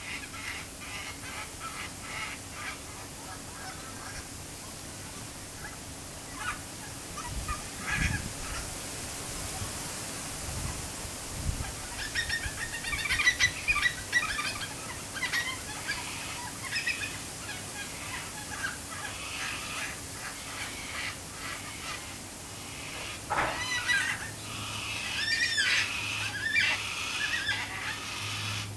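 Yellow-tailed black-cockatoo calling: scattered short calls, then a rapid run of scratchy calls about halfway through and another burst near the end. A few low thumps come in the first half.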